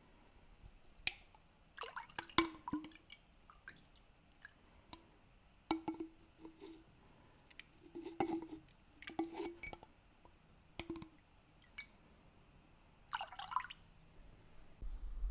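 Water dripping and splashing close up in scattered, uneven drops, a couple with a falling plop, among small wet clicks.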